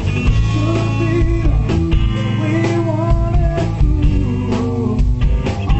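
Live rock band playing: electric guitar over bass and drums, with a man singing.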